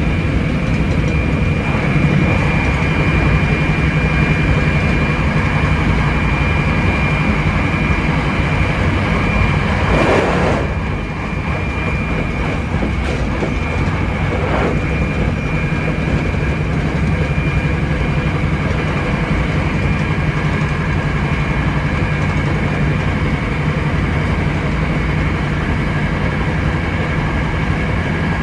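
Hankyu 7300 series electric train running at speed, heard from the cab: continuous running noise with a steady high tone over it. About ten seconds in there is a brief louder rush, after which it runs a little quieter.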